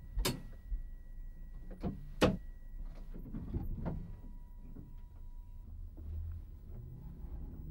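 Sharp clicks and clunks of equipment in the driver's cab of a 1962 stock London Underground train, four in the first four seconds, over a faint steady whine. Near the end a low rumble builds as the train starts to move off.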